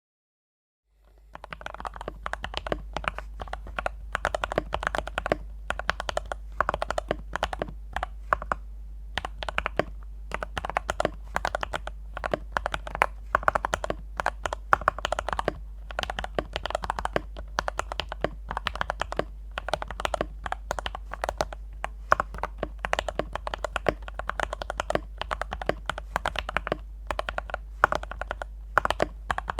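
Fast typing on a Yin Chen D84 mechanical keyboard with Gateron Brown tactile switches and a case filled with polyester cotton: a continuous, irregular stream of keystroke clacks that starts about a second in, over a steady low hum.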